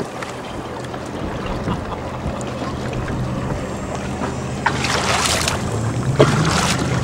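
Watercraft engine running steadily on open water under wind and water noise; its pitch climbs from about four and a half seconds in as it speeds up, with a gust of noise around the five-second mark.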